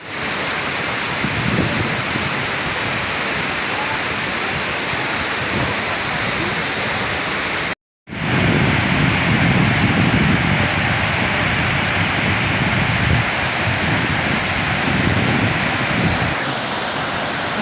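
Kuang Si Falls' water pouring and splashing down, a loud, steady rushing roar. It breaks off for a moment about eight seconds in and starts again.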